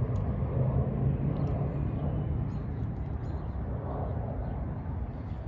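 Steady low rumble of outdoor background noise, with a few faint short high chirps.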